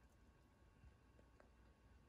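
Near silence: room tone, with a couple of very faint ticks.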